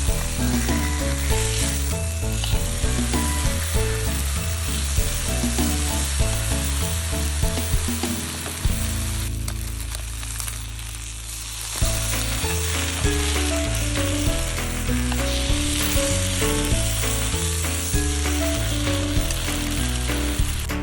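Food sizzling and frying in a pan, a steady crackling hiss, under background music with a bass line. The music's bass holds one long note for a few seconds near the middle.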